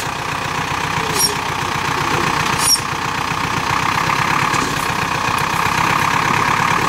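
GAZ-66 truck engine idling steadily, with two brief light clicks about one and three seconds in.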